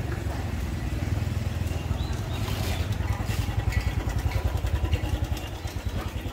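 A motorcycle engine running with a quick, even pulsing beat, growing louder to a peak about three to five seconds in and easing off near the end.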